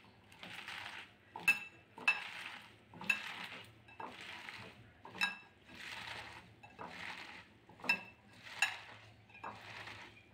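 A hand squeezing and tossing chopped spinach leaves with salt in a glass bowl: soft, wet rustling squelches about once a second, with a few sharp light clinks against the glass.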